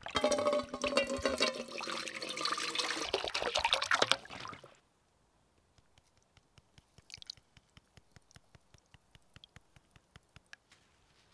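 Water poured into an empty stainless steel pot, filling it with a loud splashing, ringing pour that stops about four and a half seconds in. Then fine salt poured into the water, a run of faint quick ticks.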